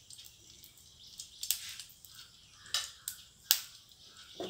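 Ghee sizzling faintly on a hot non-stick tawa, with a few sharp crackles and pops.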